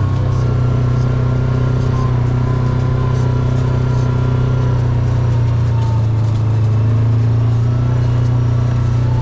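Vehicle engine running at a steady speed, a continuous low drone while riding along.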